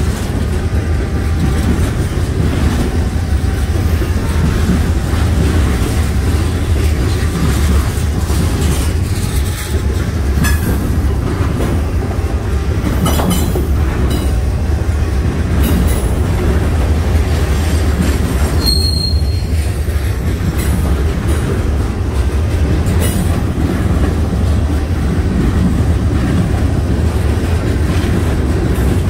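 CN freight train rolling past, its cars making a steady heavy rumble with scattered clicks of wheels over the rails. A short high-pitched wheel squeal comes about two-thirds of the way through.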